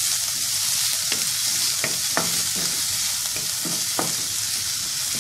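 Chopped onion and garlic sizzling in hot cooking oil in a metal wok, a steady hiss, while a wooden spatula stirs them and scrapes and knocks against the pan every half second or so.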